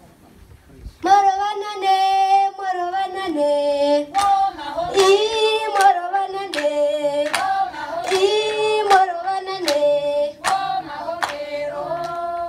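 A group of children's and women's voices singing a Herero song in two-part harmony in held, stepping notes, starting about a second in. Sharp hand claps cut through the singing at irregular intervals.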